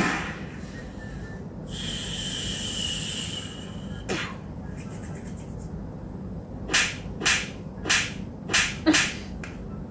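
Sound effects in a comedy sketch: a sharp smack as a paper ddakji tile is thrown onto the floor, a steady hiss for about two seconds, another smack, then a quick run of six sharp smacks about half a second apart.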